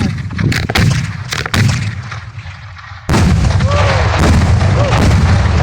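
Fireball salute firework shells going off: a quick series of sharp bangs and cracks, then about three seconds in a sudden loud burst of dense noise that carries on.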